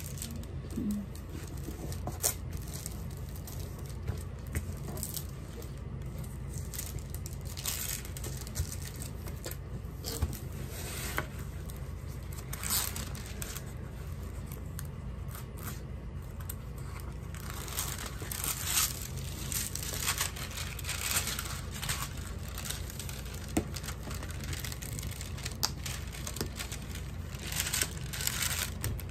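Diamond painting canvas under its clear plastic film crinkling and rustling as hands smooth, slide and turn it on a table, in irregular bursts that grow busier in the second half.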